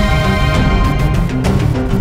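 News-bulletin background music: a dramatic theme with held notes over a heavy low beat.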